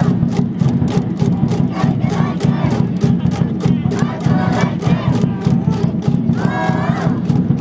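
A high school baseball cheering section chanting and shouting in unison over a fast, even beat of about three to four strikes a second.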